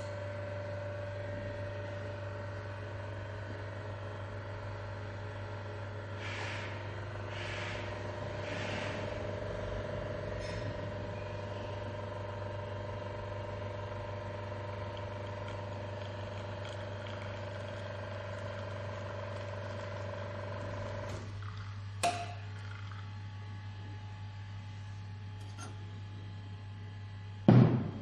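Deer Coffee DR1280 espresso machine running its pump with a steady hum while a double shot extracts, until the hum drops away about three-quarters of the way through as the shot ends. A sharp click follows about a second later, and a louder knock comes near the end.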